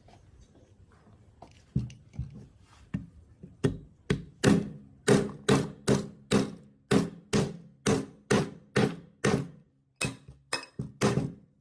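Repeated hammer strikes on metal, about two a second, each ringing briefly, with a few scattered knocks before the steady hammering starts and a short pause near the end.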